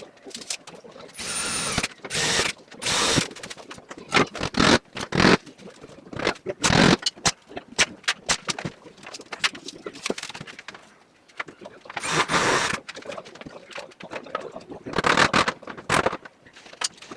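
Carpentry work: a choppy run of short knocks and scrapes, broken by several bursts of a power tool about a second long, one of them with a thin high whine.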